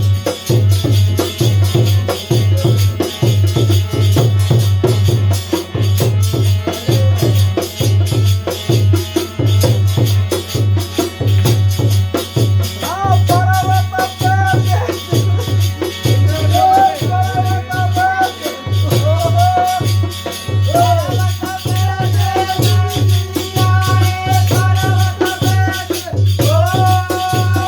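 Holi folk song music: a steady drum beat with rattling percussion, joined about halfway through by a held, wavering sung melody line.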